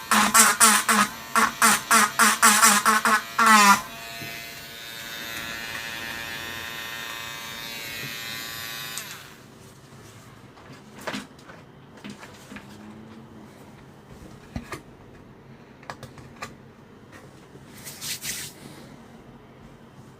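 A small electric motor buzzing, first in quick rapid pulses, then running steadily before it switches off and winds down about nine seconds in. A few light clicks and a short scraping burst follow near the end.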